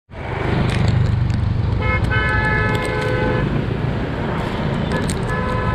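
Vehicle horn sounding a held honk of about a second and a half, then again near the end, over steady traffic and wind noise from riding a bicycle in town traffic.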